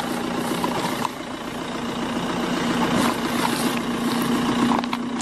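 Steady idling engine hum with a constant low tone and a fast pulsing throb.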